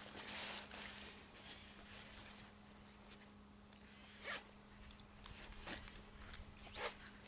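Short rasping, rustling scrapes of a carp cradle's wet PVC liner being handled and pulled: a cluster in the first second, then a few brief zip-like rasps in the last few seconds.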